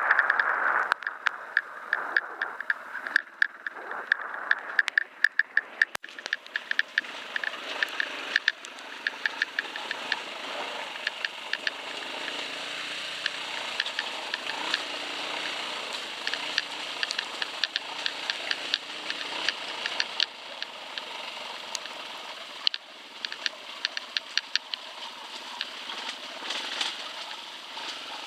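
Dirt bike engine running as it rides down a rough, rocky trail, with frequent sharp clicks and rattles over the engine noise, thickest in the first ten seconds or so.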